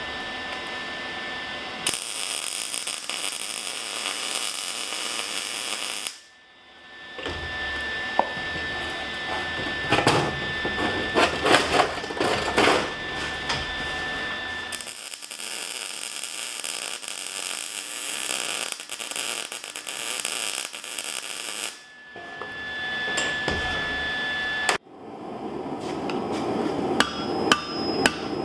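Loud, steady shop noise, a hiss with a steady whine in it, in several stretches that start and stop abruptly as steel is worked at the bench. Near the end come repeated hammer blows on hot steel, ringing off an anvil.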